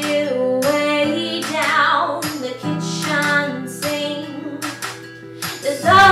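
A young woman singing a pop song over an instrumental backing track with plucked strings and regular percussive beats.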